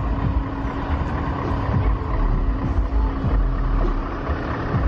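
Heavy diesel truck engines running, a steady drone with a deep rumble underneath.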